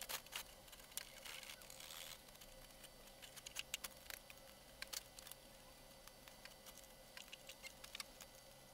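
Faint scratching and tearing as old canvas covering is peeled off a wooden trunk, mixed with scattered small clicks of pincers and nails. The tearing sits in the first couple of seconds; after that it is mostly irregular light ticks.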